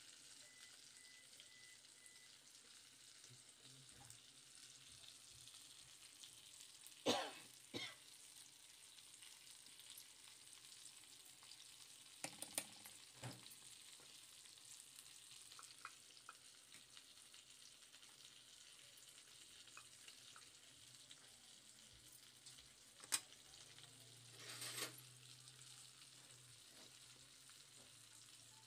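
Faint steady hiss with a few short clinks and knocks of steel kitchenware, plates, spice-box bowls and a spoon being handled. The sharpest knocks come about seven seconds in and again about twenty-three seconds in.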